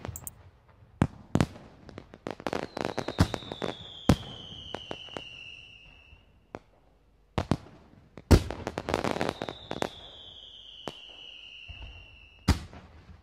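Fireworks going off: a run of sharp bangs and crackling, with two long whistles that slide down in pitch, one starting a few seconds in and one past the middle.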